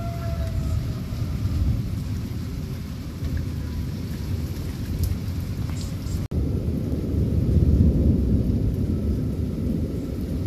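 Heavy thunderstorm: pouring rain with a deep, continuous rumble of thunder, swelling loudest about eight seconds in. A tornado warning siren's wail slides down in pitch and fades out within the first second. The sound cuts out for an instant a little past six seconds.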